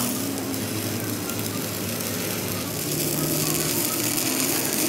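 Arc welding electrode crackling and sizzling steadily as it lays weld into a bolt hole of a steel axle flange, with a low hum underneath.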